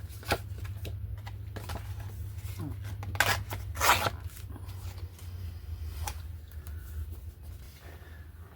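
Sheets of paper being shuffled and rustled, with a couple of louder rustling bursts a few seconds in and a few sharp clicks, over a steady low hum.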